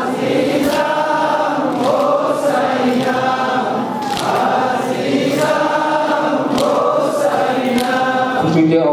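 Male voices singing a Muharram noha (lament for Imam Hussain) together, a led melodic chant taken up by the congregation, with soft thumps of chest-beating (matam) roughly every second or so.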